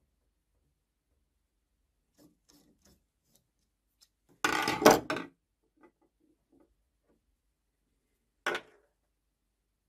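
Metal scraping and rattling for about a second as the ball-handled crank is taken off the cross-slide handwheel of an old Lorch lathe. Faint clicks come before it, and a single short knock comes near the end.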